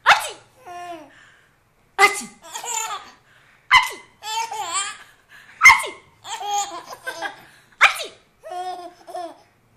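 A baby laughing in repeated bursts, each set off by a sudden sneeze ('achoo'). There are five sneezes about two seconds apart, each followed by a fit of laughter.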